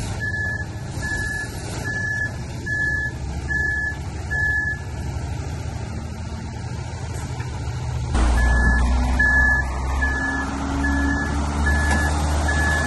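Heavy diesel engine of a concrete mixer truck stuck in mud, running under strain as it tries to work free, with a backup alarm beeping about twice a second. The beeps pause midway, and about eight seconds in the engine gets clearly louder.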